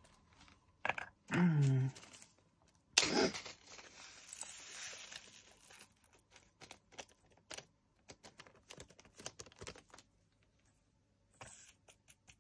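Plastic drill baggie rustling and small resin diamond-painting drills rattling into a small clear plastic storage pot, with a louder rustle about three seconds in followed by many light scattered plastic clicks as the pot and drills are handled.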